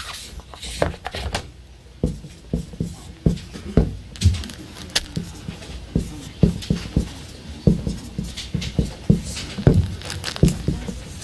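Marker pen writing on a whiteboard: an uneven string of short strokes and taps, two or three a second, with a dull knock of the board under the pen.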